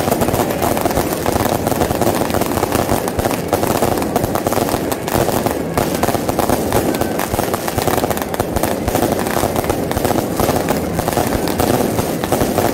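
A fireworks barrage: many aerial shells bursting overhead in rapid, unbroken bangs and crackling, with no let-up.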